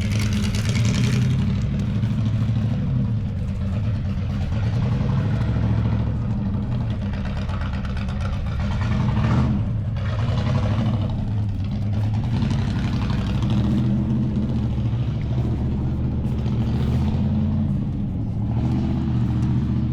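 A car engine running steadily, with slight rises and falls in pitch.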